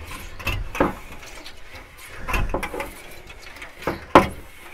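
Glass-removal cutting wire being pulled through the adhesive bonding of a van's side window, in three separate strokes about a second and a half apart, the last the loudest. The friction of the wire is hot enough to make the adhesive smoke.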